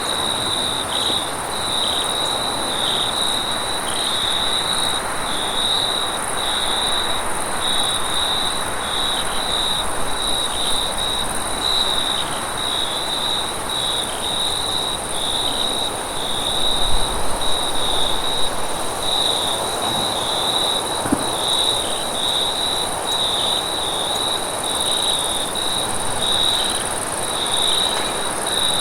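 Crickets chirping at night in a steady rhythm, their trill broken about once a second, with a constant higher-pitched insect drone above them and a soft background hiss.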